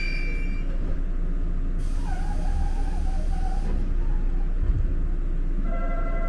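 Steady low rumble and hum inside a JR 185 series limited express car, with a faint wavering tone over it for a couple of seconds near the middle.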